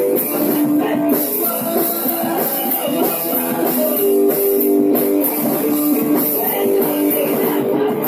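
Rock band demo, an instrumental stretch led by guitars playing sustained chords and notes, with no vocals.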